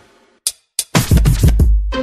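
Background music with a heavy beat that cuts out for a moment, with two short hits in the gap. The beat comes back about a second in.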